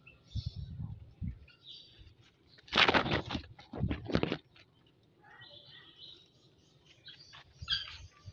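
Birds chirping now and then in the background, with two loud rustling bursts about three and four seconds in and a few soft low thumps in the first second.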